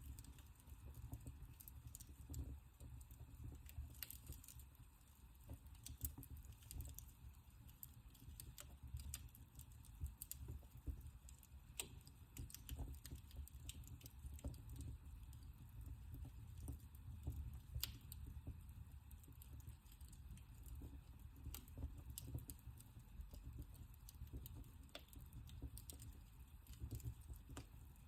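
Wood fire burning in a fireplace: faint, irregular crackling with a few sharper pops over a low, steady rumble of the flames.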